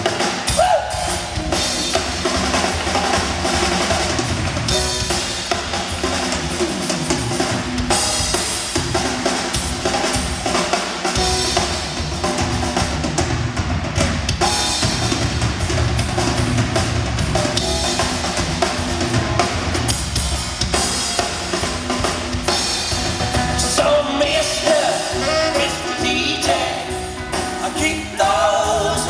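A band playing with the drum kit out in front: bass drum, snare and rimshots drive a dense, steady groove. Pitched instruments stand out more clearly near the end.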